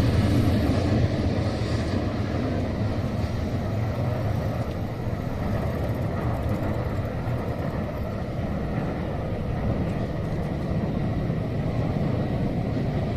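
Steady low rumble of vehicles at a railway level crossing, easing a little over the first couple of seconds and then holding level.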